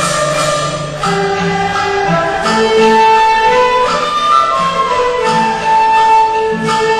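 Instrumental background music: a melody of long held notes over a lower repeating accompaniment.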